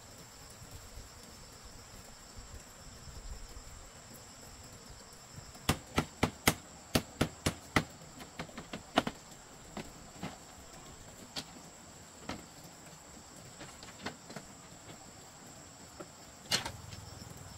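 Steady high drone of insects such as crickets. About six seconds in, a quick run of about eight sharp knocks, three or four a second, then scattered single knocks and taps.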